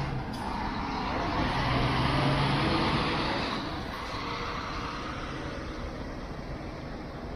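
Double-decker intercity coach's diesel engine running as it drives slowly past, getting louder about two seconds in and fading as it pulls away.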